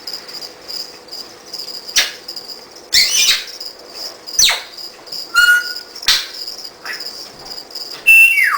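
African grey parrot whistling and clicking: a few sharp clicks, several whistles that glide downward in pitch, and a short steady whistled note, over the steady high chirping of crickets.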